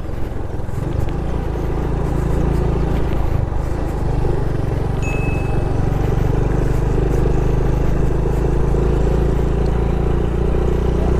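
Honda Pop 110i's small single-cylinder four-stroke engine picking up in the first second, then running steadily under load as the motorcycle rides through loose sand.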